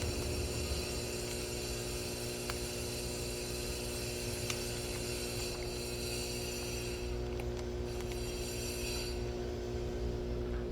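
A steady machine hum with a high whine over it; the whine thins out about seven seconds in and stops near nine seconds, while the low hum keeps on.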